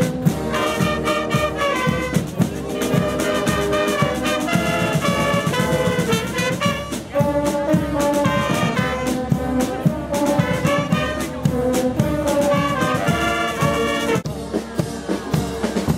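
Street brass band of baritone horns, trumpets and saxophones playing a tune over a snare drum beat; the melody breaks off about two seconds before the end.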